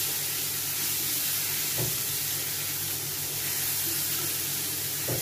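Mushrooms, onions and green chillies sizzling steadily in oil in a non-stick frying pan as a wooden spatula stirs them, with two short knocks of the spatula against the pan, about two seconds in and near the end.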